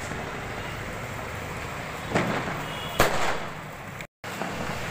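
Firecracker exploding on a road: two bangs about a second apart, the second louder and sharper, with echo trailing after it.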